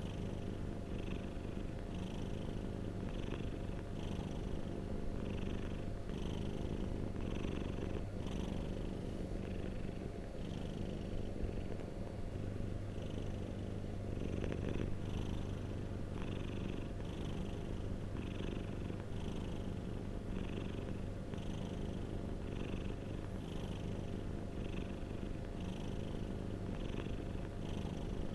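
Domestic cat purring close up: a steady low rumble, with a light hiss higher up that comes and goes about once a second and drops out for a few seconds near the middle.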